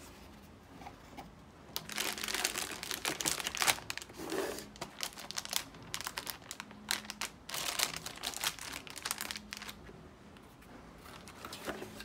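A motherboard's packaging being unpacked: the cardboard box handled and opened, and the plastic anti-static bag and accessory packets crinkling and rustling in irregular bursts. It is quieter for the first couple of seconds and again near the end.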